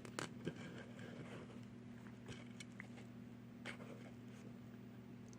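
A steady low electrical hum, with a few faint clicks and taps from a small diecast toy car and its parts being handled.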